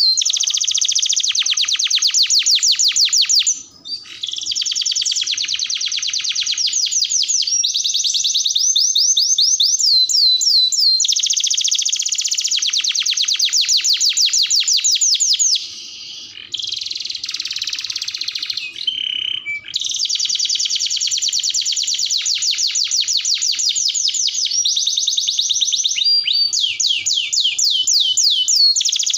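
Domestic canary singing a long, almost unbroken song of fast trills. Each trill is a rapid run of repeated notes, and the song switches from one trill to the next, with a brief break about four seconds in and a harsher, buzzier passage around the middle.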